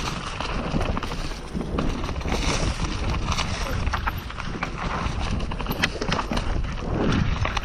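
Mountain bike riding fast down a dirt trail: tyres rumbling over the ground, the bike clattering and rattling over bumps, with wind rushing over the microphone.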